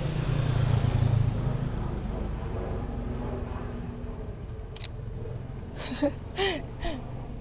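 A motorcycle engine passes close by, loudest about a second in, and its hum then fades into a steady low drone. A single sharp click comes past the middle, and a few short voice sounds follow near the end.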